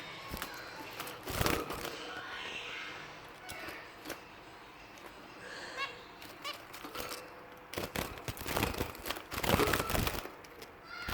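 Finches calling with short, high, repeated chirps, mixed with clicks and rustling that grows loudest just before the end.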